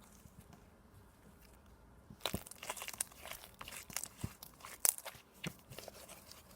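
Sticky golden holographic slime being squeezed and pulled by hand, giving irregular crackling, popping clicks and tearing sounds that start about two seconds in. The slime is still a bit sticky.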